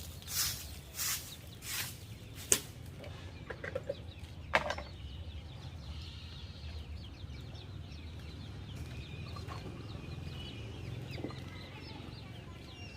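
Chickens clucking softly in a coop. In the first two seconds there are a few rhythmic swishes, and a couple of sharp knocks follow.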